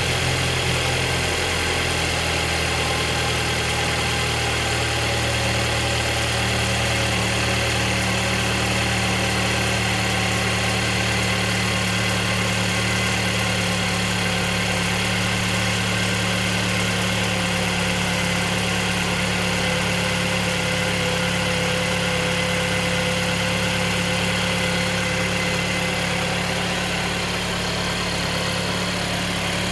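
2023 Mercedes-Benz E250 engine idling steadily. The owner takes the noise for an abnormal engine noise after 6000 km, but a service centre found nothing wrong.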